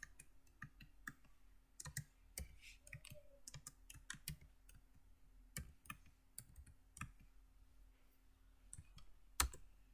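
Computer keyboard keys being typed on: faint, irregular keystroke clicks as a command is entered.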